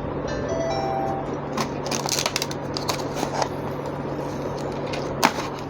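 Packaging of a step drill bit set being opened and handled: irregular rustles and sharp clicks, with a louder knock about five seconds in.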